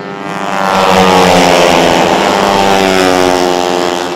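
Four-stroke racing Vespa scooter engine passing close at speed: its note grows loud about a second in, holds, and falls away near the end.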